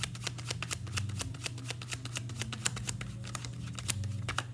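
Tarot deck (The Universal Gold Tarot) being shuffled by hand, overhand style: a quick, continuous run of card clicks and flicks, several a second, as cards slide off the pack into the other hand.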